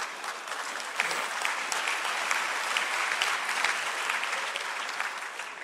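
Large audience applauding in an auditorium. The clapping swells about a second in, holds, and dies away near the end.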